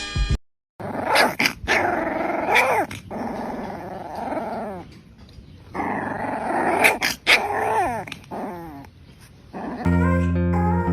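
A dog growling in uneven bouts, some with rising and falling pitch, and quieter gaps between them.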